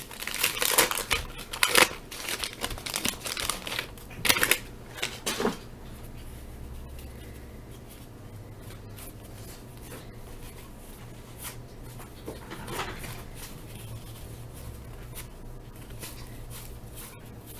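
Wax paper wrapper of a 1983 Topps baseball pack being torn open and the cards handled, a crinkling and rustling for the first five seconds or so. After that only a low steady hum with a few faint clicks.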